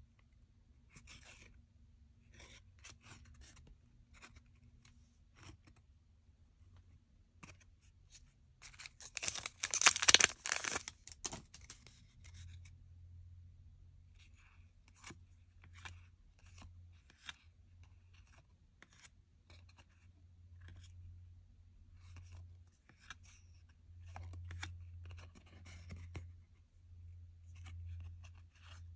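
Glossy trading cards being shuffled by hand, one slid behind another, making soft flicks and scrapes of card edges, several a second in loose clusters. About a third of the way in comes a louder crackling rustle lasting about two seconds.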